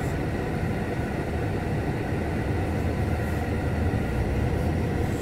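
Steady cabin noise of a car driving slowly, a low engine and road rumble heard from inside the car.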